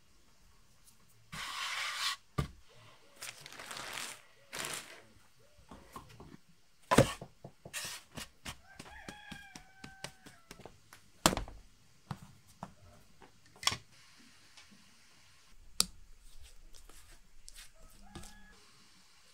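Bread-dough preparation sounds: a few rustling scrapes early on, then sharp knocks and slaps of hands and dough on a floured wooden board, the loudest about seven and eleven seconds in. A chicken calls once in the background, about nine seconds in.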